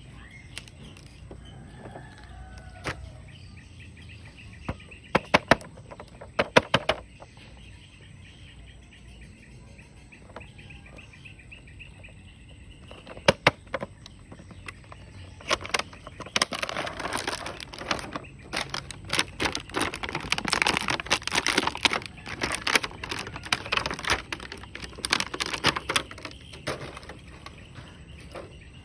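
Plastic toy packaging and action figures being handled: scattered sharp clicks, then from about the middle a long run of dense crinkling and clicking that stops shortly before the end. Faint bird chirps sound in the background.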